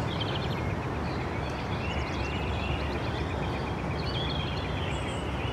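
Outdoor ambience: a steady low rumble with birds chirping repeatedly over it.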